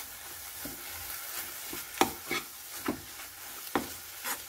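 Steel spatula scraping and knocking against a nonstick kadai as frying vegetables and masala are stirred, with several uneven strokes from about two seconds in, over a steady sizzle.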